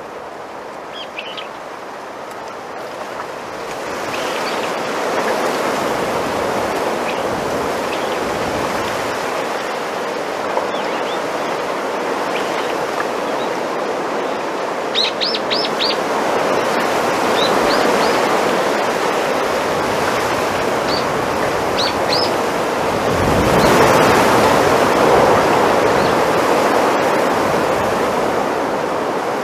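Wind rustling through bamboo leaves in a steady rush. It swells with a gust about four seconds in and a stronger one about twenty-three seconds in. Small birds chirp briefly now and then, with a quick run of chirps around fifteen seconds in.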